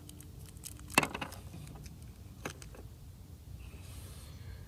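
One shot from an Air Venturi Avenger .25 regulated PCP air rifle: a single sharp crack about a second in. A few faint light clicks follow, from handling the rifle.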